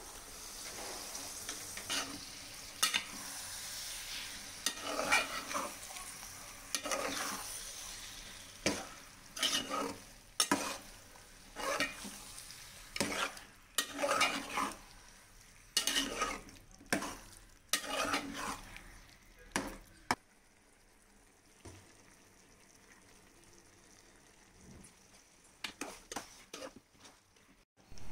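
Pieces of goat liver, heart, lungs and kidney sizzling in hot oil and masala in a metal pot, then stirred in a series of short scraping strokes. It goes much quieter for the last several seconds, with only a few light clicks.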